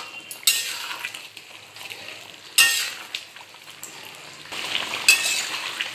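Metal spatula stirring and scraping a simmering chicken curry in a metal kadai as the garam masala is mixed in: three sharp scrapes about two seconds apart over a steady sizzle.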